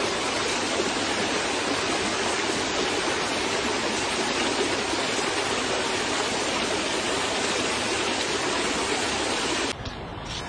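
Steady, even rushing noise with no distinct events, cutting to a quieter background near the end.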